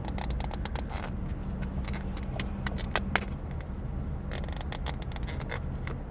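Plastic takeout packaging being handled and pried at: a run of sharp clicks, crinkles and scrapes over a steady low hum.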